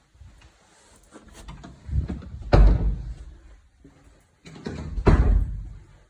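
A door shutting twice with a heavy thump, the two shuts about two and a half seconds apart. Each thump is led in by a brief sliding noise.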